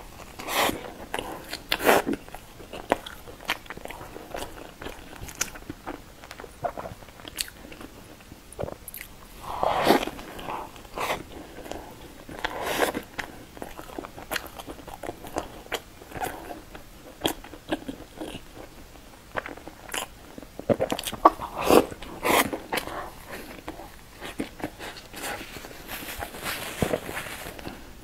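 Close-miked eating of a soft bread pastry: bites, then chewing with wet mouth smacks and light crunches, coming irregularly throughout.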